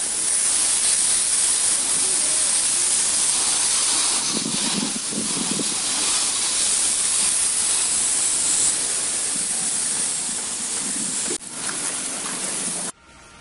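Water spraying from a garden hose in a steady hissing jet, splashing onto a soapy car body. It cuts off suddenly near the end.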